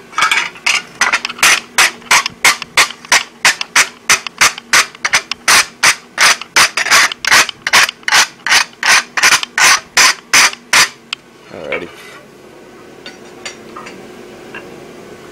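A hand hammer strikes hot steel on an anvil in a steady rhythm of about two to three blows a second, forging the bar. The hammering stops about eleven seconds in.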